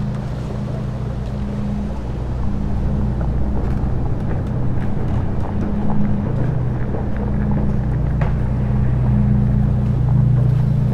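Low, steady droning ambient soundscape: a sustained deep hum under a soft hiss, with scattered faint clicks.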